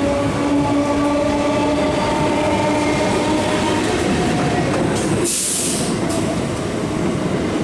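Electric multiple unit (EMU) local train running on the track: dense running noise with a steady whine that fades after about four seconds, and a short hiss about five seconds in.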